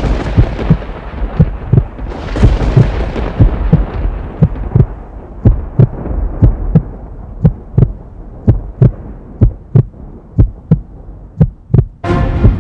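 Heartbeat sound effect: steady paired lub-dub thumps a little under a second apart over a low rumbling noise. Music comes in near the end.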